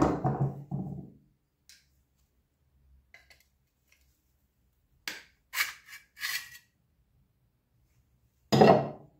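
Steel scabbard parts and pliers being handled on a wooden workbench. There is a clatter at the start, a few quick sharp scrapes and clinks about five to six and a half seconds in, and another loud clatter near the end.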